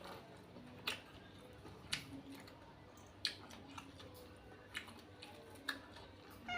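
A person eating close to the microphone: quiet chewing with short, sharp mouth clicks or smacks about once a second.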